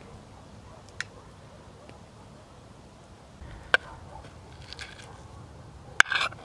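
Metal spoon clinking and scraping against an aluminium pan while eating from it: a few sharp clinks, the loudest near the end followed by a brief rattle, with light scraping in between.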